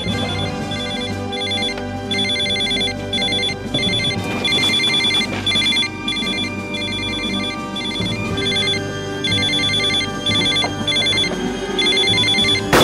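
Mobile phone ringtone: short electronic beeps repeating about twice a second, with a couple of brief pauses, over a sustained orchestral music bed. A sharp bang comes just before the end.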